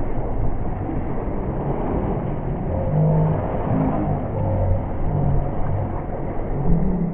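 A boat's engine running steadily, its low pitch wavering up and down a little, over a haze of wind and water noise.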